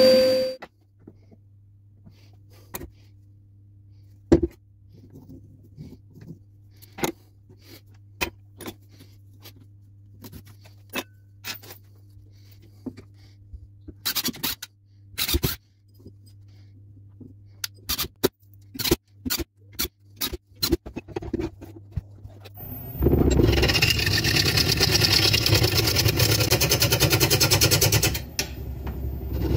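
Scattered clicks and knocks of a green ash blank and screws being handled, then two short bursts of a cordless drill-driver driving screws through a steel faceplate into the blank. About 23 seconds in, a lathe gouge starts cutting the spinning spalted green ash bowl blank: a loud, steady cutting noise that breaks off briefly near the end as the tool comes away, then resumes.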